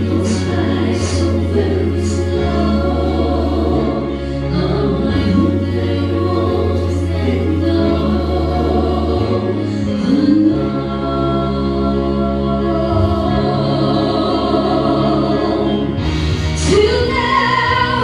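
A trio, two women and a man, singing a slow pop ballad in harmony through handheld microphones over a backing track of held low bass notes.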